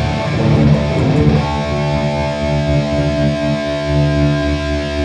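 Electric guitar played through a Boss Katana Gen 3 amp with Contour 1 engaged, which adds warmth and lower-mid body. Chords are strummed, then about a second and a half in a chord is struck and left ringing.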